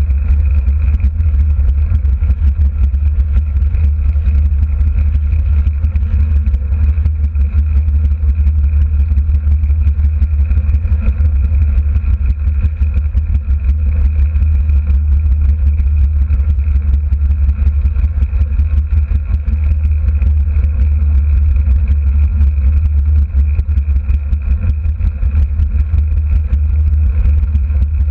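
Small derny motor running steadily at pace speed, with a constant low rumble and a faint whine, mixed with wind rushing over the microphone.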